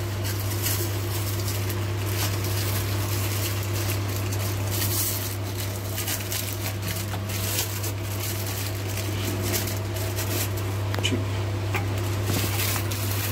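A steady low hum throughout, with light clicks and rustles as a white plastic powder canister is handled and turned over.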